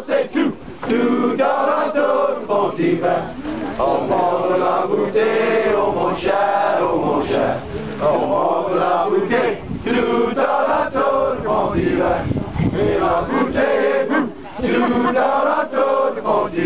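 A crowd of masked Cajun Mardi Gras revelers chanting together in loud overlapping voices, without a break.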